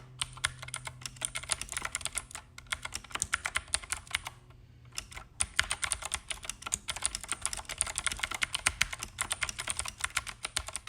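Fast typing on a Keychron K8 tenkeyless mechanical keyboard with clicky Keychron blue switches: a dense run of sharp key clicks, broken by a pause of about a second roughly halfway through.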